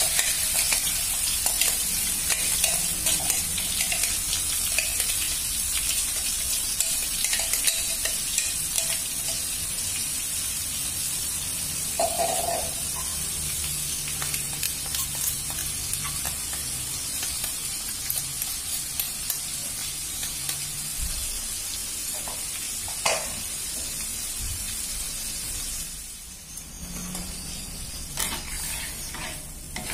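Wet blended garlic, pepper and dried-shrimp paste frying in hot oil in an aluminium wok: a steady sizzle that slowly grows quieter and drops off near the end as the water cooks out.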